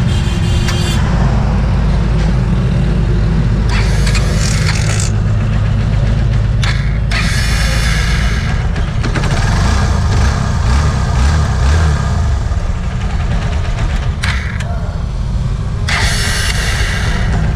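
Honda TMX Supremo motorcycle's single-cylinder engine running after being started on its repaired electric starter motor, with a few louder stretches. The starter works again.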